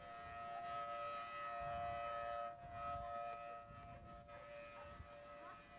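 Outdoor tornado warning siren sounding a steady, held tone, with a low rumble of wind on the microphone underneath.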